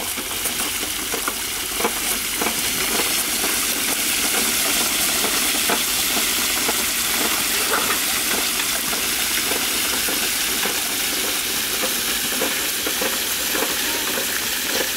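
Bicycle rear wheels spinning in a muddy puddle, throwing off a steady spray of water that hisses and splatters.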